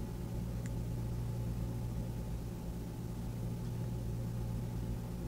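Steady low electrical-sounding hum with faint background noise and no other distinct events.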